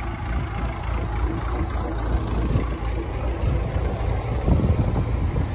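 Farm tractor engine running steadily as the tractor drives past towing a trailer with two jet skis.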